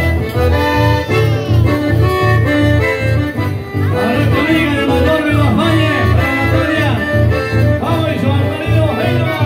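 Button accordion playing a lively folk tune live, with guitar accompaniment over a steady low beat about twice a second.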